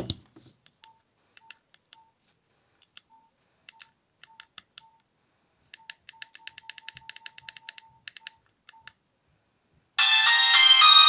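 Nokia mobile phone keypad beeping, one short beep per key press as the menus are scrolled, sparse at first and then in a quick run of about four or five a second. About ten seconds in, a ringtone preview starts playing loudly from the phone's speaker.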